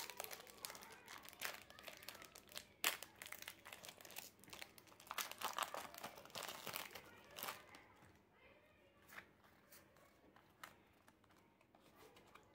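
Foil Pokémon booster pack wrapper being torn open and crinkled, a dense crackling with the loudest tears about three seconds in and again around five to seven seconds. The sound then thins to fainter rustles and clicks as the cards are handled.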